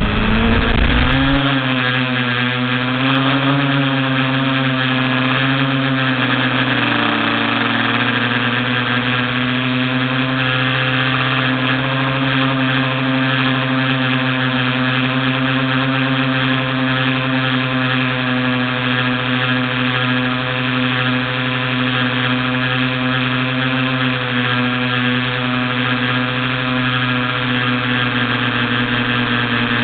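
TBS Discovery FPV quadcopter's electric motors and propellers, heard from its onboard camera. A whine rises as the motors spin up for takeoff and wavers in pitch during the first few seconds of the climb, then holds a steady drone in cruising flight.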